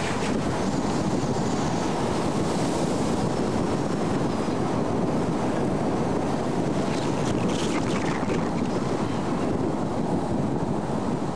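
Wind buffeting the camcorder's microphone as it rides outside a moving car, a steady rushing noise, with the car's running noise mixed in.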